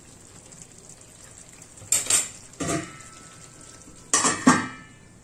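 Stainless steel cookware clattering: a couple of metal knocks against the karahi, then, about four seconds in, a glass lid with a steel rim set down on it, the rim ringing briefly.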